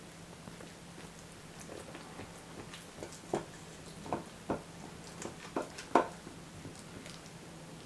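Silicone spatula scraping and knocking against the inside of a metal springform ring: a string of about seven short soft knocks, the loudest about six seconds in, over a faint steady hum.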